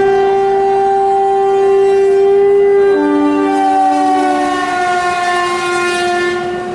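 Indian Railways electric locomotive's horn giving one long blast as the express passes. A second, lower tone joins about three seconds in, making a two-tone chord, and the pitch sags slightly near the end.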